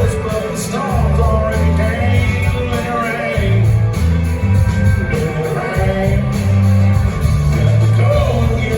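Live country-rock band music, loud, with a heavy pulsing bass line, steady drum beats and a melody line on top.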